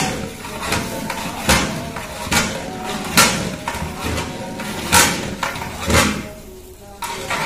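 Long-handled metal spatula scraping and knocking against a large metal cooking pot as polao is stirred, a sharp stroke roughly every second, the last about six seconds in.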